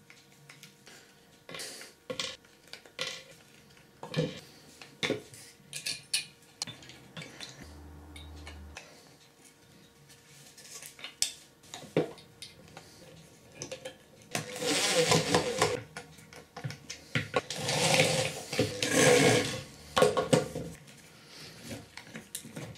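Screws, metal brackets and caster wheels clicking and knocking against wood as a small wooden caster base is put together, then three loud bursts of one to two seconds each in the second half: a cordless drill driving screws into the wood.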